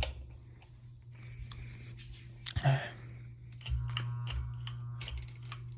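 Steady low hum of running ceiling fan motors, with scattered light clicks and knocks.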